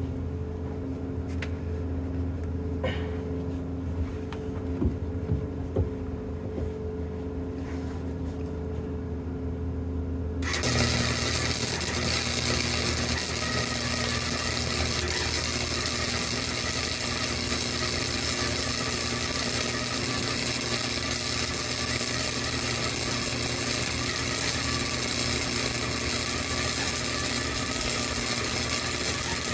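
Steady low hum with a few clicks, then about ten seconds in a flux-core wire welder's arc strikes and crackles steadily as a bead is run on steel rebar.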